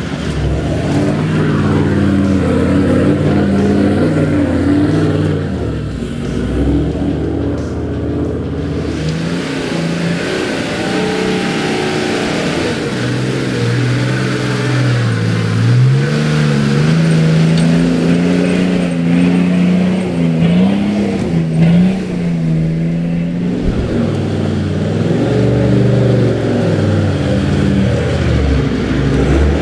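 Four-wheel-drive utes, Toyota 79 series LandCruisers and a Nissan Patrol, climbing a steep rutted dirt hill one after another, their engines working under load and revving up and down as they crawl up.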